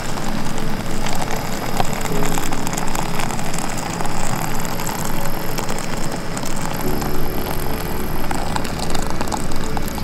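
Boiling water pouring from a cook pot into a freeze-dried meal pouch: a steady, loud gushing and splashing that keeps going, with a low hum joining about seven seconds in.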